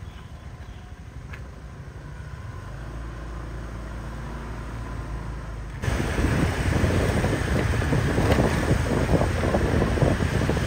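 A low motor-vehicle rumble, then from about six seconds in, loud wind buffeting the microphone of a camera moving along behind a scooter, over road and engine noise.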